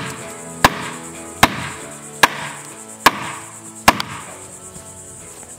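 Wood-on-wood knocks: a log swung as a mallet drives the end of a green-wood crosspiece into a hole in a tree trunk. Five sharp, loud blows come a little under one a second, over background music.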